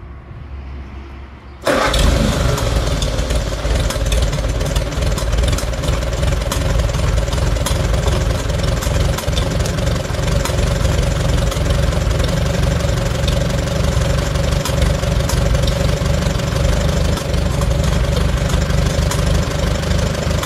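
Farmall A tractor's four-cylinder gasoline engine starting: it catches suddenly about two seconds in and then runs steadily. It runs on a freshly rebuilt Zenith carburetor, with the oil-bath air cleaner just cleaned of water and refilled with oil to cure a rich, rough-running condition.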